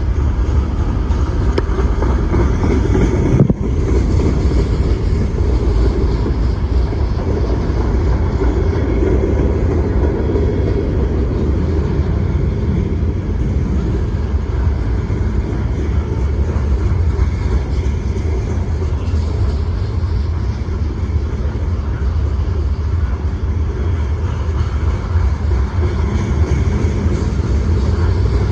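Freight train cars rolling past, a steady low rumble of wheels on rail, with a single sharp knock about three and a half seconds in.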